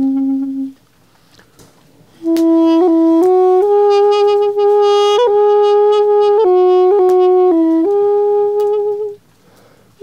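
Balaban, a double-reed woodwind of apricot wood with a cane reed, playing a slow melody of long held notes. A held note ends within the first second, and after a pause for breath the tune picks up again and runs until a short gap near the end.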